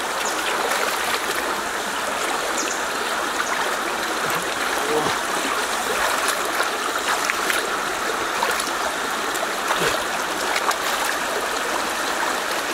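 Shallow stream running steadily over stones, with small splashes and trickles as hands rinse dragon fruit and dip a wicker basket in the water.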